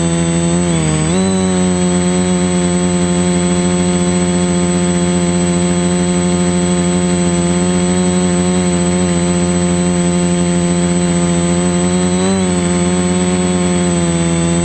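Multirotor drone's electric motors and propellers buzzing steadily, heard close from the drone's own camera; the pitch dips and recovers about a second in and wavers briefly near the end.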